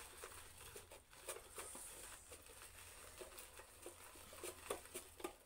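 Faint, irregular clicking and rattling of a small plastic hand-operated chopper crushing chopped onions.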